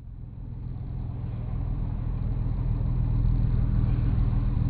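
Steady low engine and road hum of a car in slow highway traffic, heard through a dashcam's microphone, fading in over the first couple of seconds.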